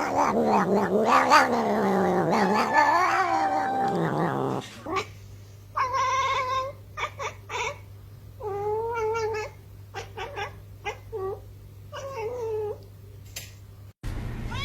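A domestic cat yowling in a long, loud, wavering caterwaul that slides up and down in pitch for about four and a half seconds. A cat then gives a string of short meows, roughly one a second, over a low steady hum.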